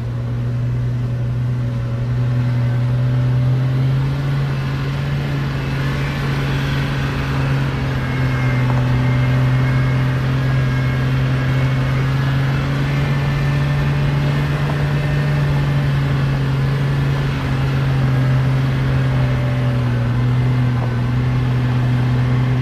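Jeep LJ's engine running steadily under way on a dirt mountain road, heard as a steady low drone with only slight changes in pitch.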